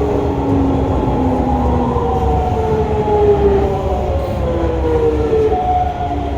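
Hokuso 7300-series electric train running, its GTO-VVVF inverter motor whine falling in pitch in steps over a steady rumble of wheels and motors: the train is slowing under braking.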